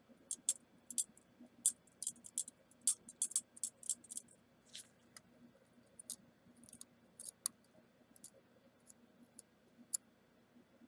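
Flux crackling and spitting under a soldering iron tip as enamel-coated magnet wire is tinned in a solder blob: irregular sharp little clicks, several a second for the first four seconds or so, then thinning out to scattered single ticks.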